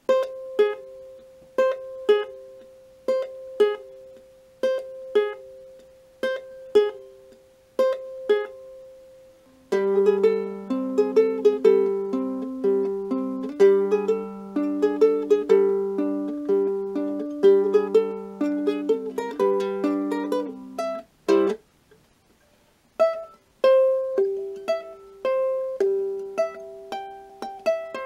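Acoustic ukulele played fingerstyle. A sparse two-note figure repeats about once a second, then fuller chords with lower notes come in about ten seconds in. After a brief stop near the twenty-one-second mark, a lighter picked melody follows.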